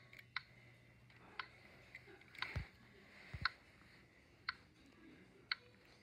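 Faint, evenly spaced clicks, about one a second, from a LEGO Mindstorms EV3 crosswalk-button build, like the locator tick of a pedestrian crossing signal. Two low thumps come about halfway through.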